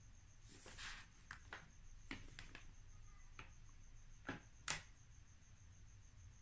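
Faint, light taps and clicks of a plastic crochet hook knocking against a paint jar and touching down on paper, a dozen or so small ticks over near silence, the two loudest a little after four seconds in.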